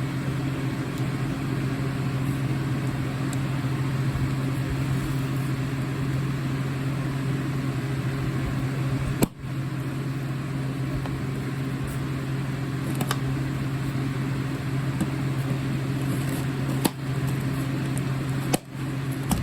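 Steady low mechanical hum with a weaker tone above it and an even hiss behind, broken by a few faint clicks and three short dips in level.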